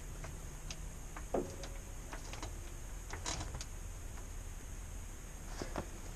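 Scattered light metallic clicks and knocks of hand tools and parts being handled under an RV's front suspension, with one sharper knock about a second and a half in and small clusters of clinks later.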